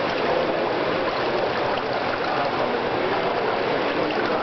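Steady wash of swimming-pool noise: moving, lapping water with indistinct background voices.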